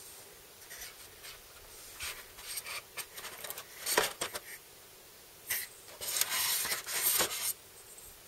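A game figure of a cat scraping and rubbing against the moulded tray of a board game box as it is worked loose from its slot by hand, with a sharp click about four seconds in and a longer stretch of rubbing with another click near the end.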